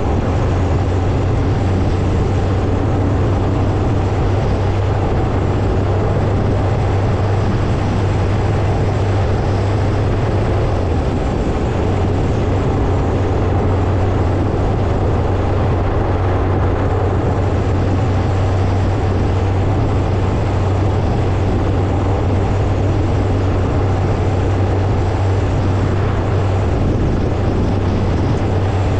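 Motorcycle running steadily with a constant low engine drone and an even rushing noise, holding the same speed without revving.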